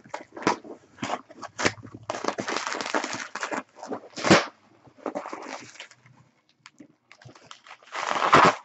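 Cardboard shipping box being torn open by hand: ripping, crackling and rustling of cardboard and packing in irregular bursts, with a quieter pause a little after the middle. It ends with a loud crinkle of bubble wrap being pulled out.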